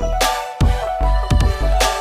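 Electronic music with deep bass and a steady beat of drum hits.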